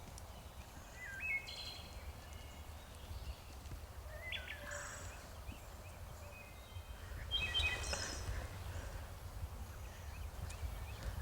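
Woodland songbirds chirping and whistling in short scattered phrases, over a steady low rumble.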